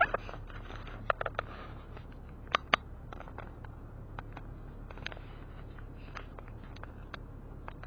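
Car cabin with the engine idling at a stop: a low steady hum, with irregular light clicks and taps scattered throughout, a few louder ones in the first three seconds.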